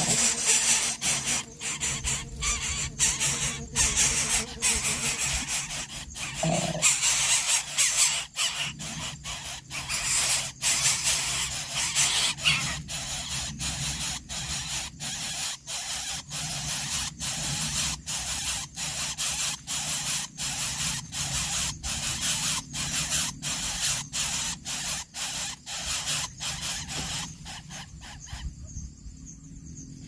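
Harsh, hissing squeals from nestling birds as a coucal raids their nest, repeated with short breaks about twice a second. The squeals drop away near the end.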